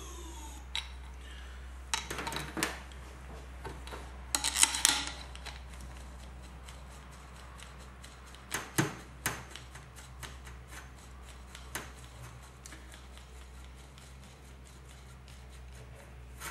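Metal motorcycle fork cartridge parts being handled and fitted together on a steel bench: scattered light clicks and knocks as the damper rod slides and parts meet, with a louder cluster of rattling clicks about four to five seconds in and a few sharper knocks near nine seconds. A steady low hum lies underneath throughout.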